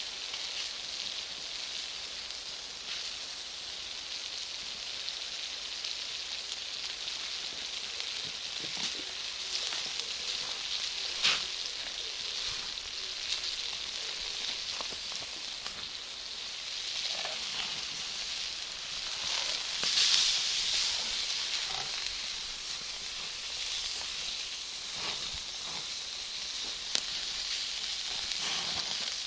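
Charcoal and wood fire of Iwate cut charcoal hissing steadily and crackling, with scattered sharp pops as the charcoal bursts; one loud pop about eleven seconds in, and a swell of hissing around twenty seconds.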